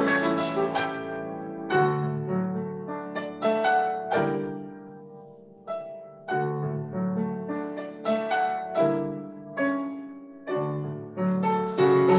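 Upright piano playing a classical piece, chords struck and left to ring. About five seconds in it fades to a soft passage, then the phrase picks up again.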